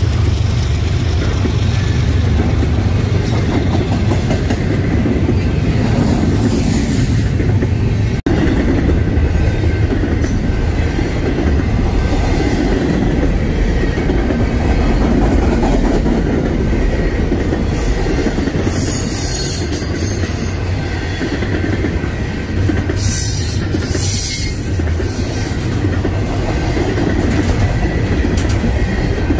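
Double-stack intermodal container well cars rolling past at speed, a steady rumble of steel wheels on rail with clickety-clack over the joints. Brief high wheel squeals come twice in the second half.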